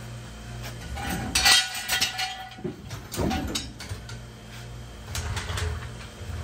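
Metal clanking and clinking of a floor jack and jack stand as a pickup truck is let down onto its wheels, with a short squeak during the loudest clatter about a second and a half in.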